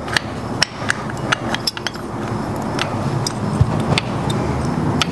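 A Subaru's flat-four engine running close by with a steady low rumble. Light metallic clinks and taps from tools working at a motorcycle's front brake disc sound over it every half second or so.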